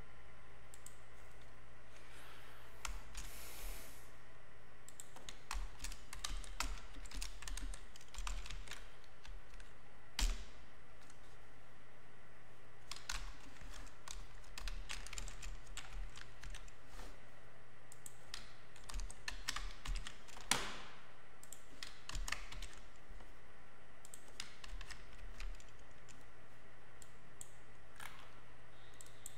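Typing on a computer keyboard: irregular runs of key clicks with short pauses, over a steady low electrical hum. Two sharper, louder clicks stand out, about a third and about two-thirds of the way through.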